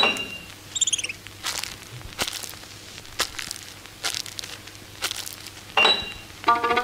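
Sound effects on an animation soundtrack: sharp clicks roughly a second apart, a few quick high chirps about a second in, and short high pings at the start and near the end. A pitched musical tone with overtones starts near the end.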